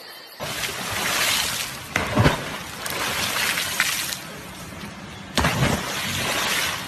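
Water churning and splashing alongside a moving boat, starting suddenly about half a second in, with sharp knocks and splashes in pairs about two seconds in and again past five seconds.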